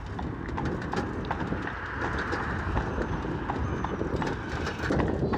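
Horse's hooves clip-clopping at a steady walk on the road while pulling a cart, over a steady low rumble.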